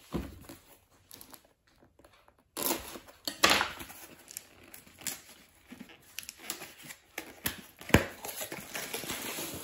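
Plastic packaging crinkling and tearing, with handling knocks, starting about two and a half seconds in; a sharp knock near the end.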